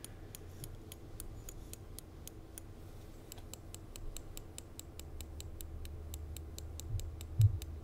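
Rapid, evenly spaced light taps, about five a second, from a hammer striking a hot steel file blade laid on a flat stone block used as an anvil. There is one duller, louder thump near the end.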